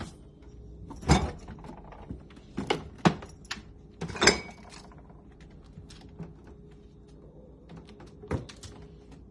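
Refrigerator door knocking and thudding as a cat paws and pulls at it, with several sharp knocks, the loudest about a second in and around three and four seconds, and lighter clicks and rattles between them.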